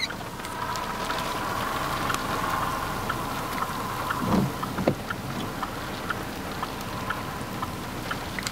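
Steady outdoor noise of wind under a thunderstorm, with scattered light ticks and a faint steady hum during the first half. Two short louder rushes come about four and five seconds in.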